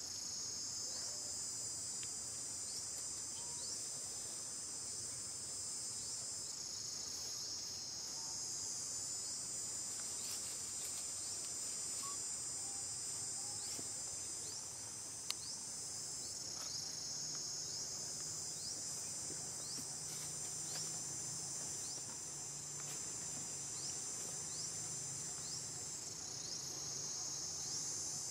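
Steady, high-pitched insect chorus that shifts slightly in pitch every several seconds, with a single sharp click about halfway through.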